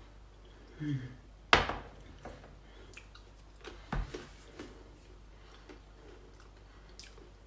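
Someone quietly eating fried peanuts: a sharp crunch or click about one and a half seconds in, a smaller one around four seconds, and faint chewing and small clicks between.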